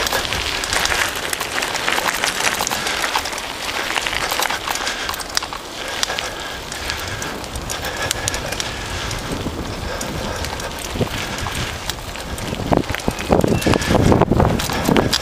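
Bicycle tyres rolling over a gravel dirt track, a steady crunching crackle of small stones. Near the end there are heavier knocks and jolts as the bike goes onto rougher, rocky ground.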